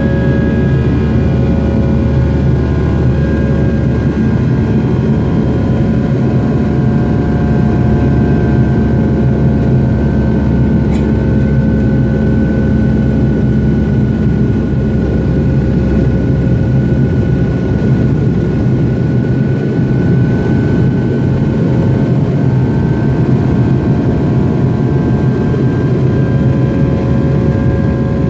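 Steady in-flight cabin noise of an MD-90 heard from a seat beside its rear-mounted IAE V2500 turbofan engines: a deep rumble with several steady engine tones that drift slightly in pitch.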